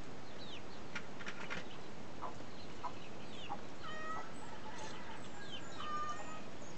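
Chickens clucking, with many short, high, falling chirps repeating throughout. A few light clinks of spoons on bowls come about a second in.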